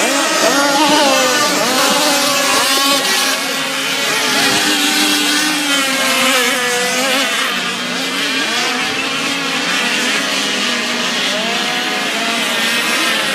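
Several radio-controlled racing boat engines running at once, their overlapping pitches rising and falling as they rev.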